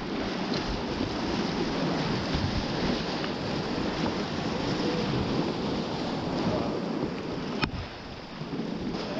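Whitewater rapids rushing steadily around a kayak running them. About three-quarters of the way through there is a single sharp knock, after which the rush briefly drops in level.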